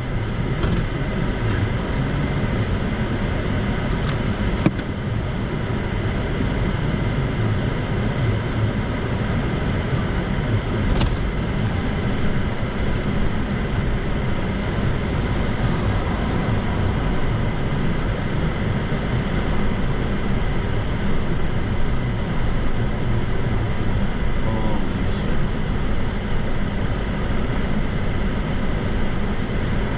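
Steady low rumble of a car driving on snowy roads, heard from inside the cabin: engine and tyre noise.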